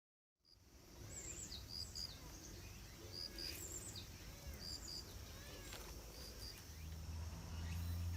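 Outdoor ambience with small birds chirping, short high double notes repeated every second or so, and a low rumble that swells near the end.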